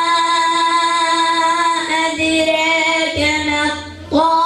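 A boy reciting the Quran in melodic tajweed style, drawing out one long phrase on a nearly steady pitch. There is a short break for breath about four seconds in, then the next phrase begins.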